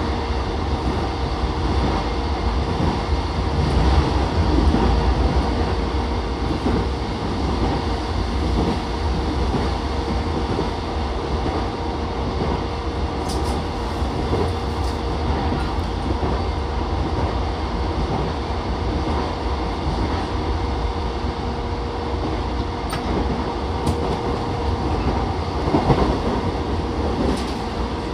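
Running noise of an E233-7000 series electric commuter train heard inside the passenger car at speed: a steady rumble of wheels on rail under a steady hum, with a few sharp clicks along the way.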